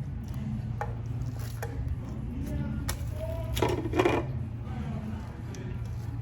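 Close-up eating sounds: a few crisp bites and chewing on pizza. The loudest bite comes about two thirds of the way through, over a steady low hum.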